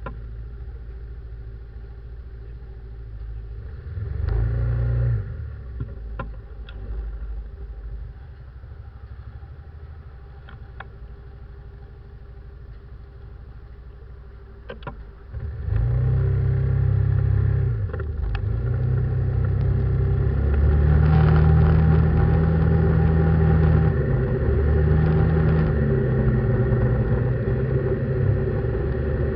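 Ford F-150 pickup's engine heard from inside the cab, idling at a stop with a brief louder swell about four seconds in. About halfway through the engine pulls away under throttle and stays loud, with short dips in level as it shifts up through the gears.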